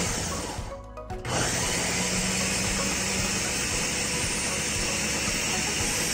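Ninja countertop blender running, blending a thick load of boiled cauliflower. The motor drops out briefly about a second in, then starts again and runs steadily.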